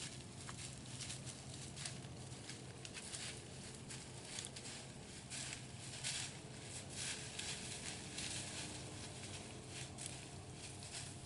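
Whitetail deer walking through dry leaf litter: irregular crunching, rustling steps.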